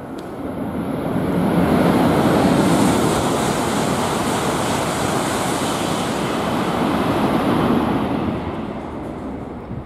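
E5 series Shinkansen passing through the station at high speed without stopping: a loud rushing of wind and wheel-on-rail noise. It swells over the first couple of seconds, holds steady, then dies away near the end.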